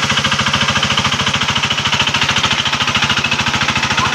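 Hand tractor (rice-field plough) engine running at a steady speed, with a rapid, even chugging.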